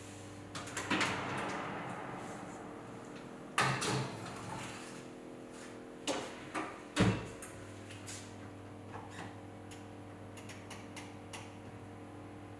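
A Siemens built-in oven door being opened, a baking tin set onto the oven rack with a metallic clatter, and the door shut with a solid thump about seven seconds in, over a steady low hum. Light ticks follow near the end.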